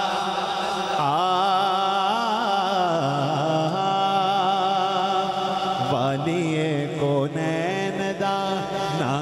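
Man singing a naat through a microphone and PA: long, wavering, ornamented notes that slide between pitches, over a steady low held note underneath.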